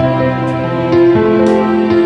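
Background music: a soft, slow instrumental with held notes and a light tick about once a second.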